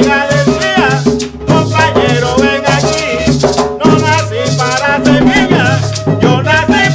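Colombian cumbia folk music played live: a maraca shakes over hand drums, and a wavering melody line runs on top.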